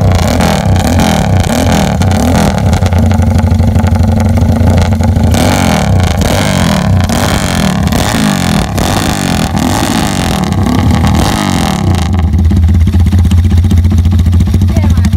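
Motorcycle with a CJDW six-sided aftermarket exhaust, revved again and again by blips of the throttle for about twelve seconds, then settling into a steady idle near the end.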